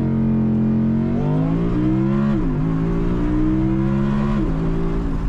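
Naturally aspirated V10 heard from inside the cabin, accelerating hard off a launch-control start: the engine note climbs, drops sharply at an upshift about two and a half seconds in, climbs again and drops at a second upshift near the end.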